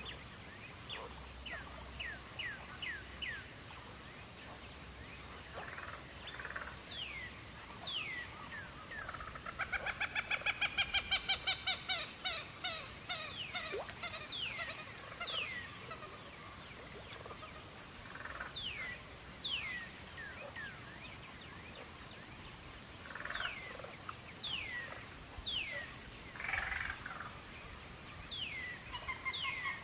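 Crickets trilling in a steady, unbroken high chorus, with birds calling over it: scattered short falling whistles and a quick run of rapid notes about ten seconds in.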